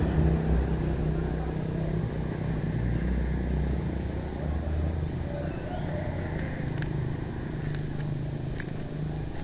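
Low motor-vehicle engine rumble fading away, with a few short bird chirps from about six seconds in.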